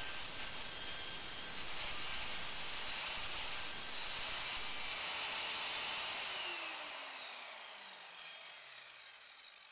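Evolution R185SMS sliding mitre saw cutting slowly through steel angle iron with its multi-material blade. At about six and a half seconds in the motor is switched off and the blade spins down with a falling whine.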